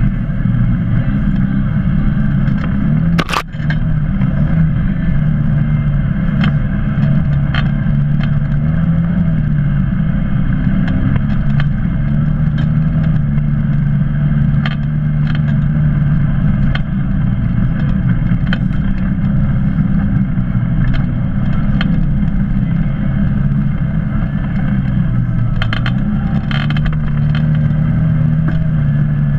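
Polaris RZR 800 side-by-side's twin-cylinder engine running steadily as it drives along a rough dirt trail, its pitch rising and falling a little. Scattered clicks and rattles run through it, with one sharp knock about three seconds in.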